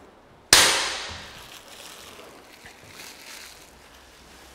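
A single sharp slap of a hand on the black powder-coated aluminum hand rail about half a second in, dying away over about a second, followed by faint footsteps.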